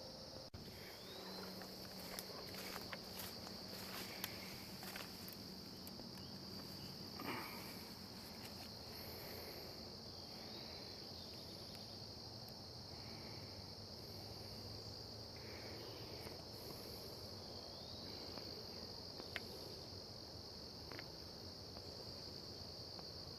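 Insects singing in one steady, high-pitched drone, with a few faint rustles and clicks over it.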